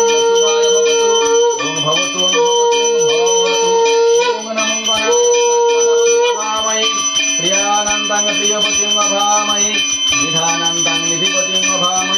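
Puja hand bell rung without pause, a steady high ringing. Over it come three long held notes, each about one to two seconds, in the first six seconds, then wavering pitched tones until the end.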